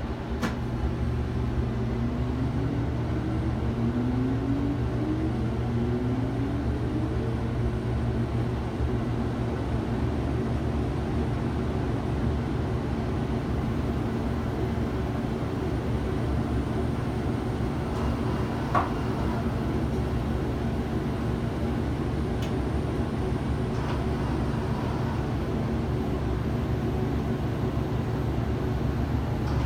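Steady low mechanical hum inside a Ferris wheel gondola as it rides. A few faint rising tones come in the first several seconds, and there is a short click about 19 seconds in.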